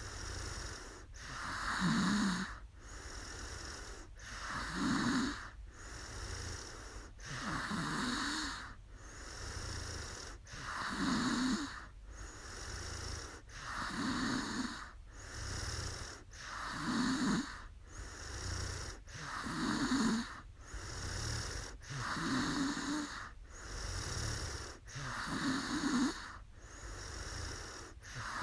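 A sleeping woman snoring steadily and regularly, one snoring breath about every three seconds, each with a low rattling pitch and a breathy rush of air.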